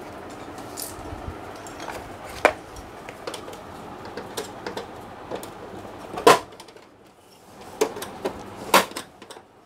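Plastic clicks and knocks of an HP LaserJet 1020 Plus printer's side cover and its latches being pried loose with a small tool. There are a handful of sharp clicks, the loudest about six seconds in, and several more near the end.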